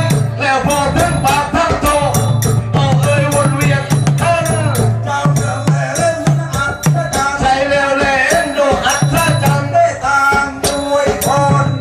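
Traditional southern Thai Nora dance music: low hand drums beating a repeating pattern under rapid, sharp, regular clicking percussion, with a wavering melody line above.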